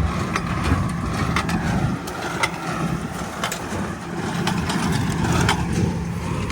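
Farm tractor engine running steadily while pulling a hay baler, with irregular clicks and rattles from the machinery over the low engine drone.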